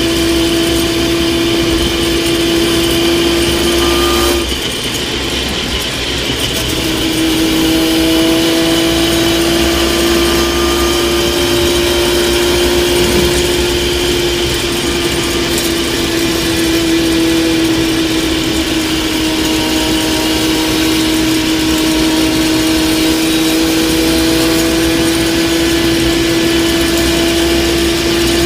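Vehicle transmission whining: a steady, loud tone over the running noise that cuts out for about two seconds a few seconds in, then comes back and drifts slightly in pitch. It is an abnormal noise, which the owner wonders may mean the transmission has blown.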